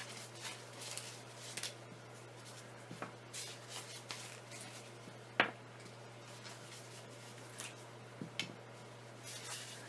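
Small plastic clicks and rustles of caps being taken off acrylic paint bottles one after another, with one sharp click about five and a half seconds in. A steady low hum runs underneath.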